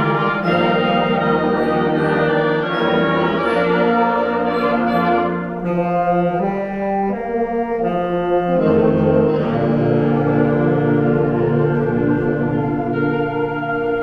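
Orchestral music led by brass, playing slow held chords that change every second or two.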